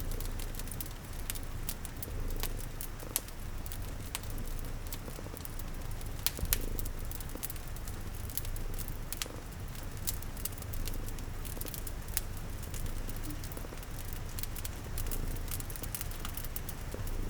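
A cat's low, steady purr under a crackling wood fire, whose sharp pops and snaps come every second or so, over a soft patter of rain.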